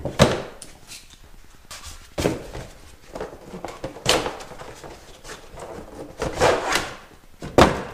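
Handling noises: an irregular run of knocks, scrapes and rustles as objects are picked up and set down. The loudest knocks come just after the start and near the end.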